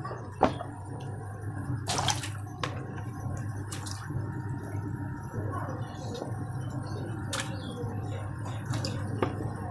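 Plastic bags of water being pressed and stacked into an ice-making freezer box, with soft crinkles, sloshing and several short knocks. Under them a steady low hum comes in at the start, the box's 1 PK outdoor refrigeration unit switching on by itself once the load of water goes in.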